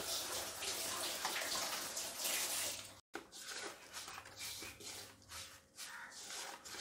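A hand rubbing and turning dry spice powder and flour, moistened with a little oil, against a stainless steel bowl, a gritty rustling scrape. It is even at first, then after a brief break comes in separate strokes about twice a second.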